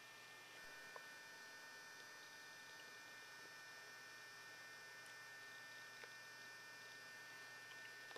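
Near silence: a faint steady electrical hum with a high whine, and a few faint clicks.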